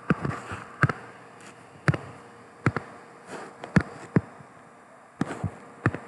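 Pen stylus tapping and scratching on a tablet or screen while handwriting: a series of sharp, irregularly spaced taps, roughly two a second, with soft scratching between them.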